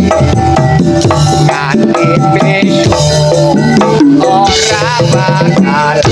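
Campursari band playing live and loud: drums and percussion keeping a steady beat under a keyboard melody with wavering held notes.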